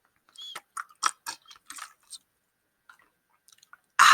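Close-up chewing of a thick gummy candy: a run of short wet clicks and smacks of the mouth for about two seconds, then a few faint ones. A loud breath comes in suddenly at the very end.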